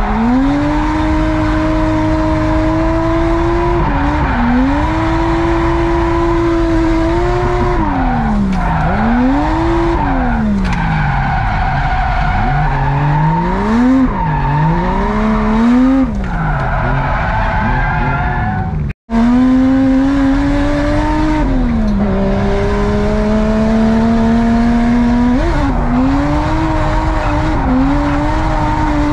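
Drift car's engine heard from inside the cabin, held at high revs through long slides, with the revs dropping and climbing again several times midway, over the squeal of sliding tyres. The sound cuts out for an instant about two-thirds through.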